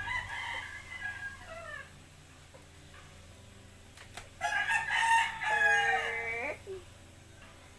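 A rooster crowing twice. The first crow comes right at the start and lasts about two seconds. The second, louder crow comes a little past the middle, is held for about two seconds, and falls off at the end.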